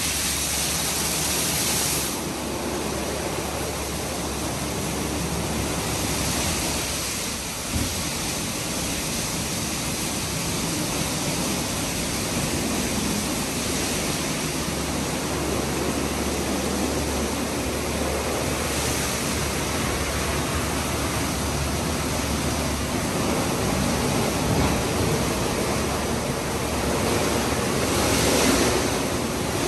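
2006 Istobal M9+ gantry car wash in its main wash cycle: a steady rush of water spraying and splashing over the car with a low machine hum beneath it. The spray hiss is louder for a couple of seconds at the start and again near the end, with one small knock about eight seconds in.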